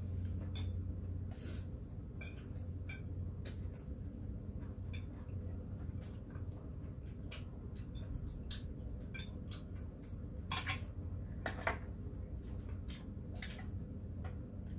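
Metal chopsticks and a spoon clicking and clinking against plates, bowls and a soup pot as two people eat, in scattered short ticks, with two louder noises about two-thirds of the way through.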